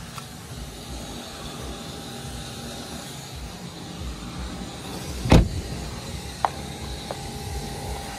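BMW 320d driver's door being shut: one heavy thump about five seconds in, over a steady low rumble, with two lighter clicks after it.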